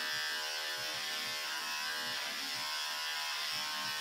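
Electric hair clippers running against a man's head with a steady buzz.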